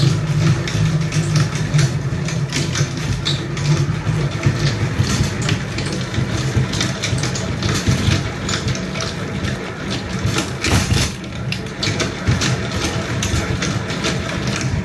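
Hand-cranked stainless steel honey extractor spinning honey frames: a steady low drone from the turning drum, with a constant clatter of the crank gearing.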